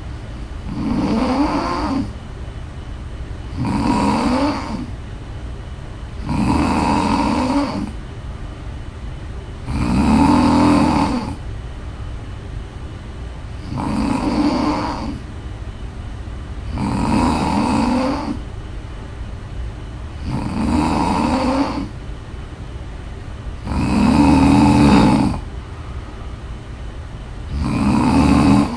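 A woman snoring in a regular rhythm: nine snores, one about every three and a half seconds, each lasting about a second, over a steady low hum.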